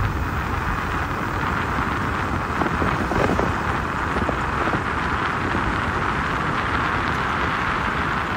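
Steady rush of wind and road noise from riding a motorcycle at speed, over a low rumble.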